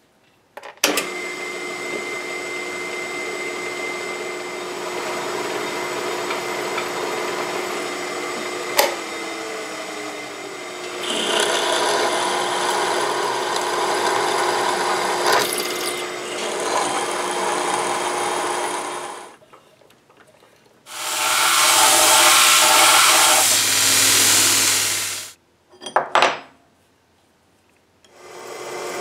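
Drill press running with a steady motor hum while a twist drill bores into steel round bar held in a drill press vise; about eleven seconds in the cutting gets louder and brighter. The press stops after about nineteen seconds, and a loud, even rushing noise follows for about four seconds, then two sharp clicks.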